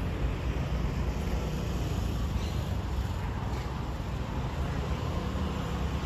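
Steady low rumble of road traffic in a town's outdoor ambience, with a few faint clicks.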